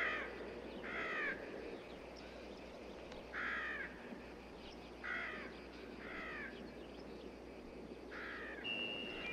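Six short, harsh bird calls, each falling slightly in pitch, spaced one to two seconds apart over a steady low hiss of outdoor ambience from a film soundtrack.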